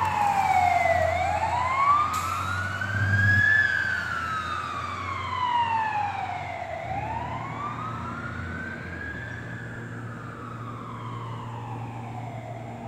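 Fire engine's siren on a slow wail, rising and falling in pitch about every six seconds, with the truck's engine rumbling underneath. Both fade steadily as the truck drives away.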